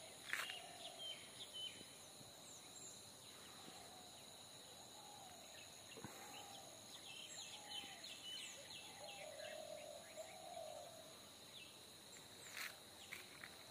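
Faint countryside ambience: insects keep up a steady high-pitched drone, while birds call in short chirps and sweeping notes, with a cluster of sharper chirps about half a second in. Softer, lower wavering calls come and go now and then.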